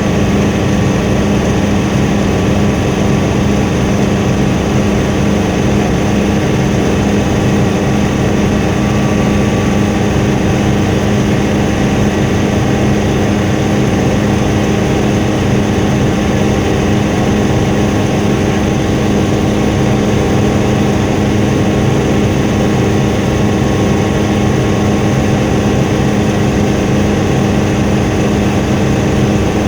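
Helicopter in flight: a loud, steady drone of engine and rotor noise with a constant low hum, unchanging throughout.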